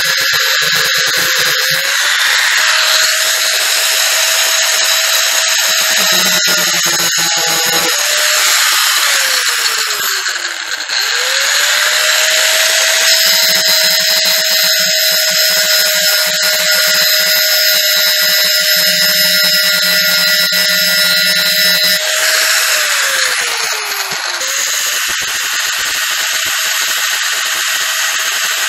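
Electric angle grinder running and grinding metal: a steady high whine over a harsh grinding hiss. Twice, about nine and twenty-two seconds in, it is switched off and its whine falls as it winds down, then it is started again and spins back up.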